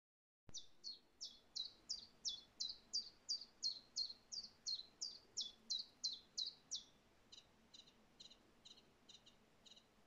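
A songbird singing a long series of loud downward-sliding notes, about three a second, for some six seconds. From about seven seconds in, a fainter series of short chirps repeats at an even pace.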